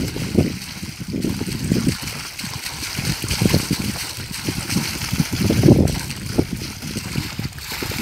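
Water gushing out of the outlet pipe of a compressor-driven air-lift borewell and splashing onto bare soil, coming in an uneven, surging rush.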